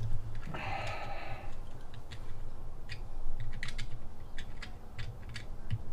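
Irregular small metallic clicks and ticks of a Helicoil thread tap being turned back out of a bolt hole in a mower transmission case, with a short rasp early in the turning.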